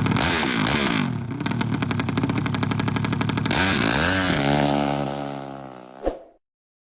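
Engine of a 380 cc drag-racing Honda Sonic motorcycle revving hard, the pitch sweeping up and down. It then holds high revs with a rapid even crackle before the pitch falls and the sound fades. It cuts off with a short thump about six seconds in.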